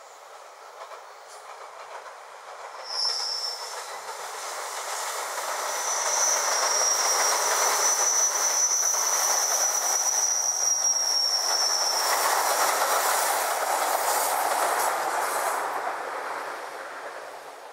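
JR Kyushu 885 series limited express electric train passing over a bridge, its wheel and rail noise building, holding for several seconds, then fading away. A brief high squeal comes about three seconds in, and a long steady high wheel squeal rings through the middle of the pass.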